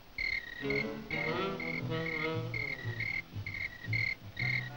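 Cricket chirping, short two-pitched chirps repeating about twice a second, with a lower pitched tone sliding up and down beneath it.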